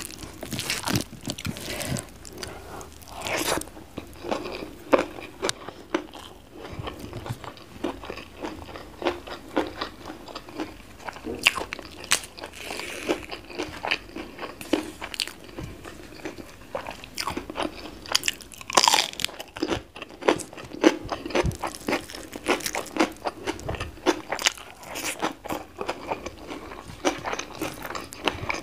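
Close-miked eating sounds: irregular crisp crunching bites and chewing of raw vegetables with rice and sambal-covered fried egg.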